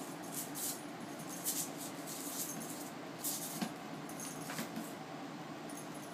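Crocheted jellyfish rattle toy rattling in short, irregular shakes as a ferret grabs and tugs it, with a sharp click about three and a half seconds in.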